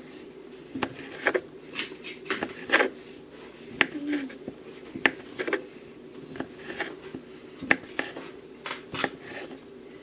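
Kitchen knife slicing through sausage onto a wooden cutting board, a short tap as each cut meets the board, a dozen or so at an uneven pace.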